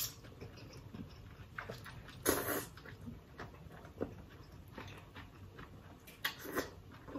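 Ramen noodles being slurped and chewed, with one loud slurp a little over two seconds in and smaller wet mouth noises scattered through the rest.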